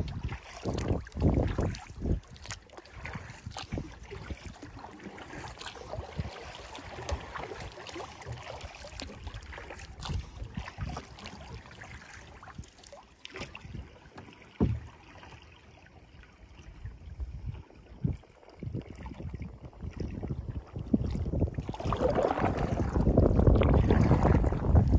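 Wind buffeting the microphone over choppy water slapping and lapping against the hull of an Eddyline Skylark sit-inside kayak. The wind drops for a few seconds past the middle, then gusts up strongly near the end.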